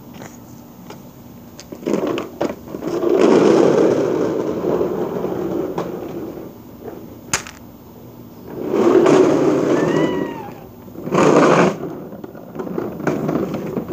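Hard plastic wheels of a kid's ride-on toy car rolling over a concrete patio in several stretches. The longest run is from about three to six seconds in. There is one sharp click about seven seconds in.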